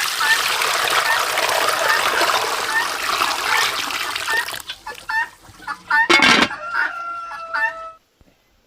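Chickens clucking in a repeated run of short calls, with a rooster crowing in one long held call near the end. A steady rushing noise covers the first half, and a short loud burst of noise comes about six seconds in. The sound cuts off suddenly near the end.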